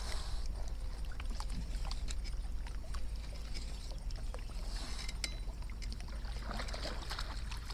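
Small waves lapping and trickling against a kayak's hull, with scattered light clicks and ticks over a steady low rumble.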